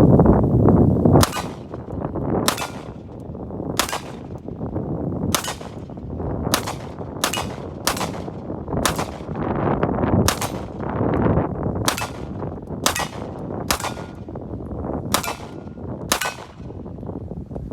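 About fourteen single shots from a CZ P01 Omega 9mm pistol, fired one at a time at an uneven pace of roughly one a second. Wind rumbles on the microphone throughout.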